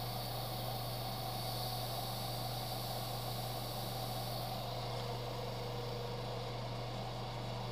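Steady hum and fan noise of a hobby spray booth, with the scratchy hiss of a green scouring pad rubbed over a painted panel, which stops about five seconds in.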